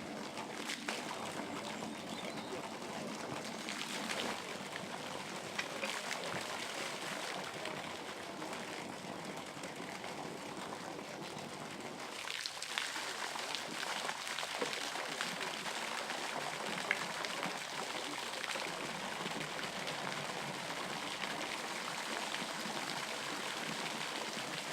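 Water trickling and running steadily, with scattered light clicks and knocks.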